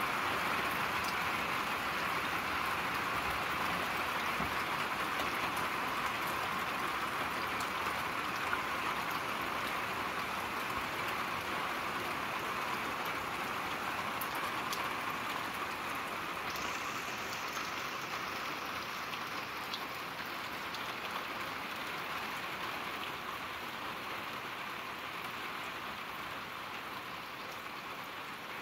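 Steady rain falling, an even hiss with faint scattered drop ticks that slowly grows a little quieter.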